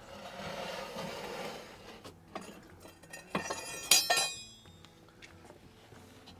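Metal scraping and clinking at the mouth of a brick wood-fired oven as the oven's metal cover and a cast-iron Dutch oven are handled. A rasping scrape comes first, then two sharp ringing clinks about three and a half and four seconds in.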